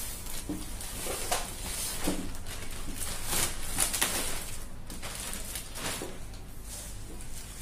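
Clear plastic packaging bag crinkling and rustling irregularly as it is pulled open and handled.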